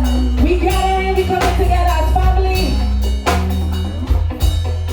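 Loud live soca music through a PA: heavy bass, a steady drum beat and a sung melody line.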